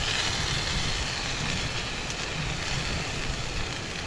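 Salmon fillets and broccoli sizzling in a frying pan over a camping stove: a steady hiss with a continuous low burner rumble underneath.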